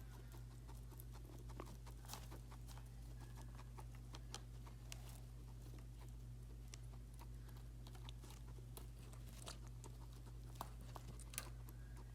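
Guinea pig drinking water: faint, irregular small clicks and ticks as it drinks, over a steady low hum.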